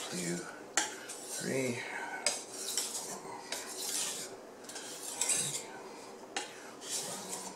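Steel kitchen knife edge drawn in repeated strokes across a wet 3000-grit water stone coated in slurry: a run of about six separate gritty scrapes, each under a second. The slurry picking up steel particles is the sign that the stone is removing steel from the edge.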